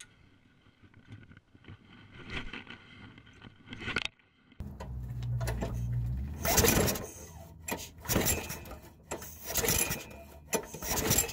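Craftsman push mower's small gasoline engine cranked by its pull-cord recoil starter, about four rasping pulls a second or so apart without the engine catching, while an inline spark tester on the plug lead shows the spark. Faint handling noise comes before the pulls.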